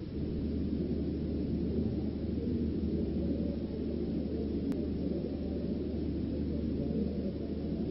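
Steady low rumble with a hum underneath, with one faint click near the middle.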